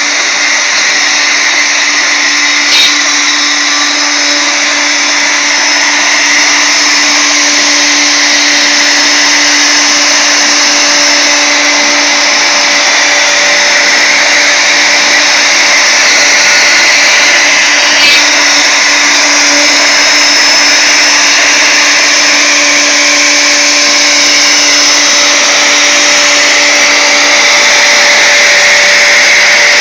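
Wood router motor on a CNC gantry running steadily at high speed with a constant whine as its small ball-nose bit makes a finishing pass in wood. Two brief clicks come about 3 seconds and 18 seconds in.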